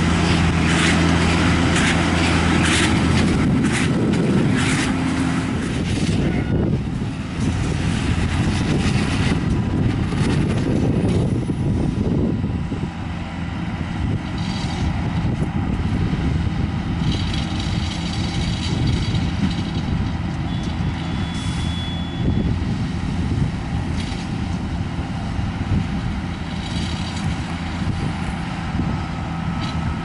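Deutz 6160P tractor engine running steadily under load while it pulls a Lely Welger RP 245 Profi baler-wrapper that is baling silage. The baler's machinery adds a rattle of knocks, most of them in the first half.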